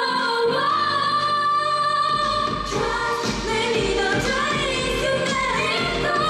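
K-pop dance song with female singing, a sung line with long held notes over the backing track. A heavy bass beat comes in about two seconds in.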